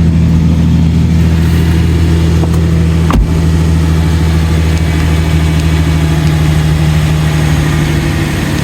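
Pickup truck engine idling steadily, with a single sharp click about three seconds in.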